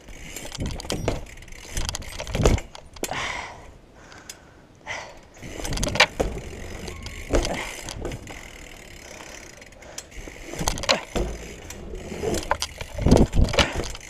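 BMX bike rolling over stone and brick paving: rumbling tyre noise with scattered clicks, knocks and rattles from the bike, and a cluster of louder knocks near the end.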